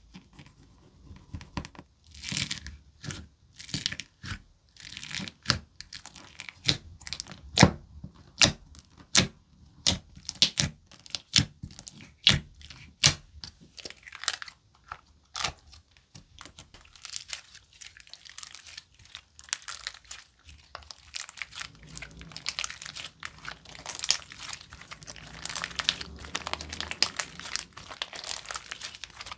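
Glue slime being pressed and stretched by hand, giving a run of sharp clicking pops and crackles. The sound turns into a denser crinkly crackle in the last several seconds.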